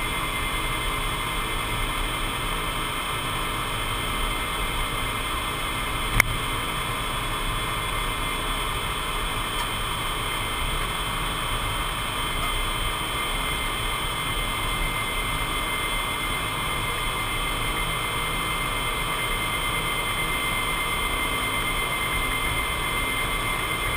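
Steady cockpit noise of a C-5 transport aircraft in flight: jet engines and airflow with a steady high whine over them, and a single sharp click about six seconds in.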